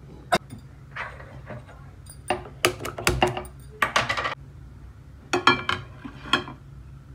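Metal kitchenware clinking and clattering: a steel spoon against bread and a pan being set on a gas stove's pan support, in a string of sharp clinks, some in quick clusters, over a low steady hum.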